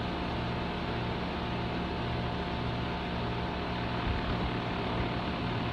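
A compressor running with a steady hum and whine over a low, pulsing throb that turns rougher about four seconds in.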